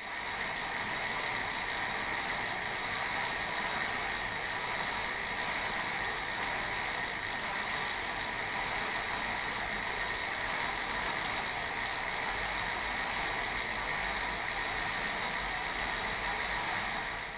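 Bicycle chain spinning over the sprockets: a steady, even, high-pitched mechanical whir.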